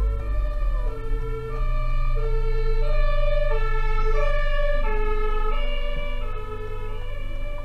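German ambulance's two-tone siren (Martinshorn) sounding, switching back and forth between a low and a high note about every half second, over a steady low rumble.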